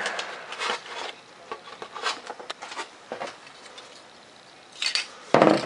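Hand-held aerosol spray paint can and a foam model jet being handled: a short hiss of spray at the start, then scattered light rubbing and knocks as the foam airframe is turned, and a louder rattly clatter near the end.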